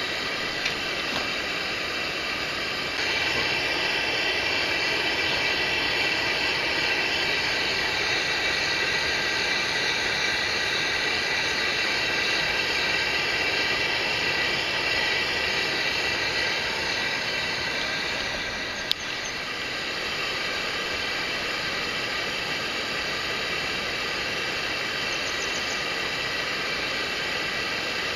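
Steady rush of flowing mountain-stream water, growing louder about three seconds in, with one sharp click a little past the middle.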